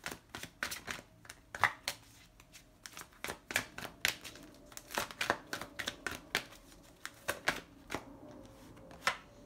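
A tarot deck shuffled by hand: a quick, irregular run of snapping and flicking of card against card.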